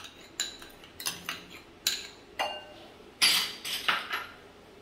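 A metal spoon scraping fresh cream out of a small bowl and clinking against the rim of a glass bowl of curd: a run of short clinks and scrapes, the loudest and longest a little past three seconds in.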